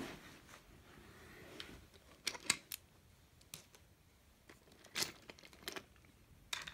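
Handling noise: a few sharp light clicks and taps, several in a quick cluster about two and a half seconds in and more around five seconds, over soft rustling.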